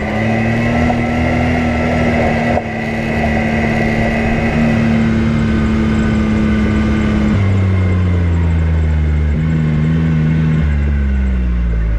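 Off-road vehicle engine running on the trail, holding a steady pitch for several seconds. About seven seconds in it drops to a lower pitch, and it steps down again twice as the machine slows.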